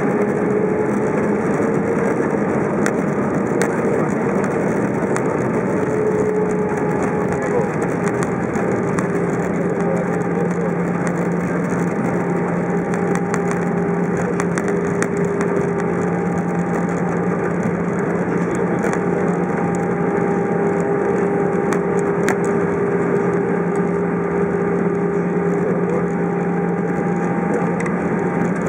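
Cabin noise of an Airbus A320 taxiing after landing, engines at idle: a steady rumble with a few constant hums.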